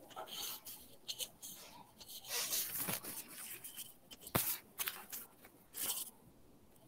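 Irregular rustling and scattered clicks of handling noise, with a sharp click about four and a half seconds in and a last rustle near six seconds, then it goes quiet.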